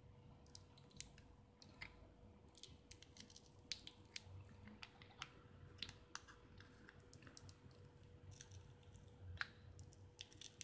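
Faint, irregular small clicks and crackly scraping as a thin screwdriver pries a flat battery cell away from the sticky glue holding it inside a plastic power bank case.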